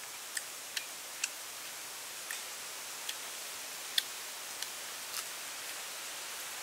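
Eating sounds of roasted duck being chewed and picked apart by hand: about eight short, sharp clicks at irregular spacing, the loudest about four seconds in, over a steady outdoor hiss.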